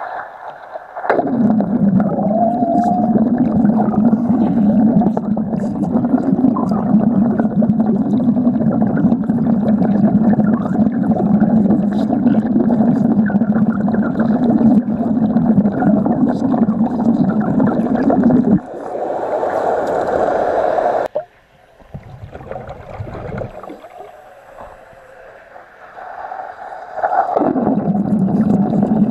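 Underwater wet stick-welding arc burning with a steady bubbling crackle, struck about a second in. It breaks off after about eighteen seconds, a quieter stretch follows, and the arc starts again near the end.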